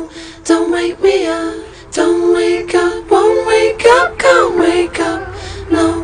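Background music: a passage of the song with no sung words, its pitched notes coming in short phrases about half a second apart.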